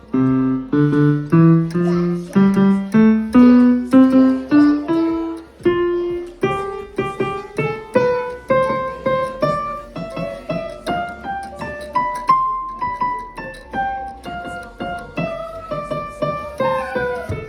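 Background piano music: single struck notes that climb step by step over the first several seconds, then a gentler melody in a higher range.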